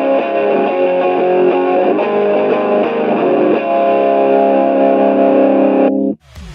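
Electric guitar with a humbucker pickup played through a Boss overdrive pedal into a Fender Deluxe amp simulation, letting overdriven notes and chords ring. The guitar stops about six seconds in, and different music with a beat starts near the end.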